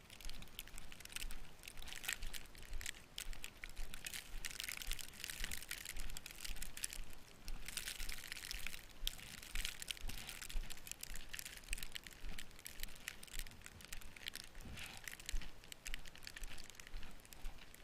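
Wet, slushy snow crunching and crackling in quick irregular bursts, with low thumps underneath.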